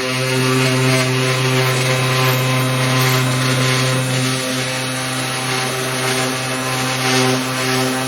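3018 benchtop CNC router running a cut: a steady spindle-motor whine with the rasp of the bit cutting the workpiece, dipping slightly about four and a half seconds in.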